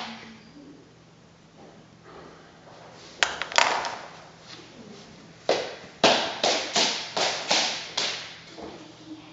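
A series of sharp taps and knocks, like hard objects set down or handled: two a little after three seconds in, then a quick run of about seven, roughly two a second, from about five and a half seconds.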